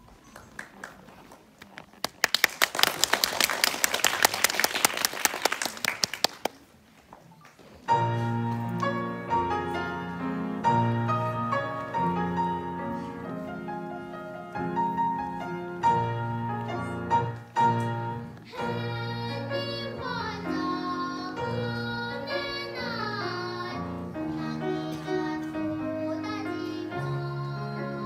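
Audience applauding for a few seconds, then a short lull before a grand piano starts the introduction of a Korean children's song. About two-thirds of the way through, a young girl begins singing into a microphone over the piano accompaniment.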